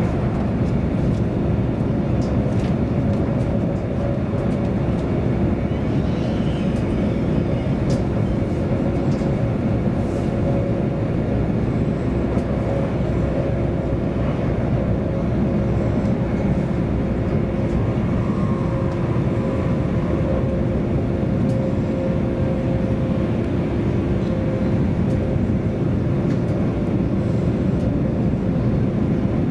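Interior running noise of a CAF Class 331 electric multiple unit at speed: a steady rumble of wheels on track, with a steady hum throughout.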